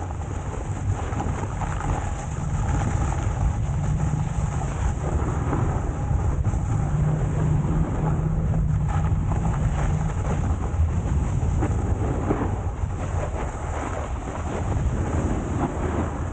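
Wind rumbling steadily on a moving camera's microphone, over a constant hiss.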